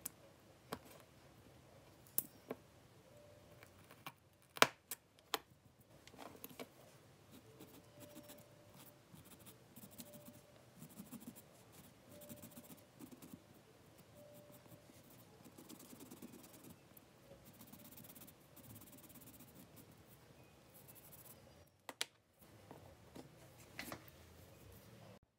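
Craft knife cutting through a soft rubber eraser-stamp block, with sharp little clicks in the first few seconds, then a long stretch of quiet scraping and rubbing against the carved block's edges, and a couple of clicks near the end.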